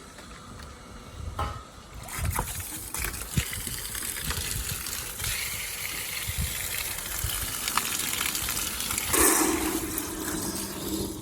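Flush water pouring and splashing as it is drained out of the engine block, a steady rush that starts about two seconds in, with a few knocks, and stops suddenly at the end.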